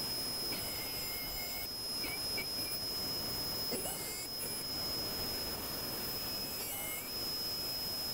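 Triton MOF001 router running in a router table, a steady high whine, as a bearing-guided bit cuts a hardwood table leg against a template. The pitch dips briefly a few times as the bit bites into the wood.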